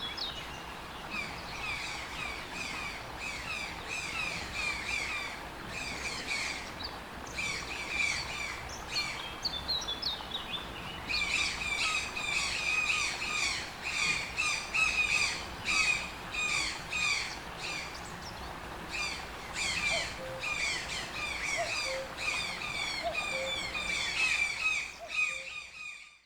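Toucan calling in rapid runs of short, downward-sliding squawks, with a brief lull about ten seconds in.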